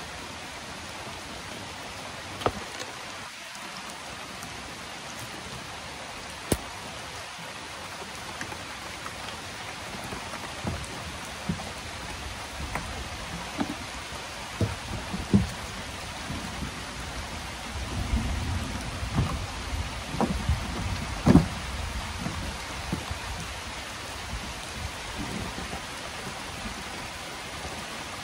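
Steady rain falling, with scattered sharp taps of single drops. About two-thirds in, a low rumble swells with a few loud thumps, then eases.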